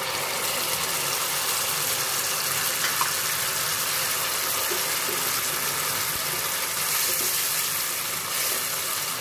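Ground tomato sizzling steadily in hot oil as it is stirred into fried onions in a stainless steel pan.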